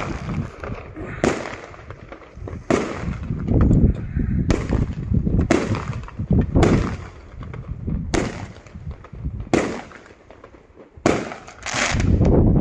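Aerial fireworks shells bursting: about nine sharp bangs one to two seconds apart, each trailing off in a low rumble. A fast run of crackling pops comes near the end.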